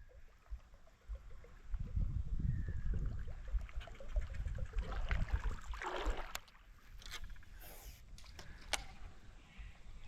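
Topwater lure splashing and gurgling across the water on the retrieve, with a low rumbling noise underneath and a few sharp clicks after the middle.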